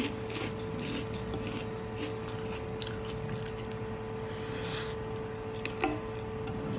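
Faint eating sounds, with chewing and a few soft clicks of fingers and food at the plate, as fried instant noodles are eaten by hand. A steady low hum runs underneath.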